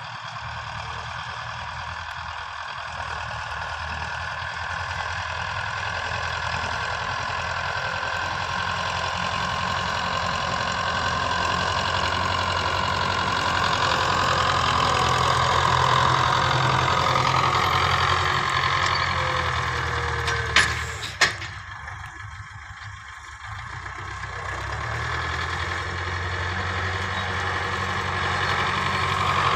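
Belarus 510 tractor's diesel engine running steadily as it works the dirt field with its front blade and rear cultivator, growing louder as it approaches. About two-thirds through come two sharp clacks, and the engine sound dips briefly before rising again.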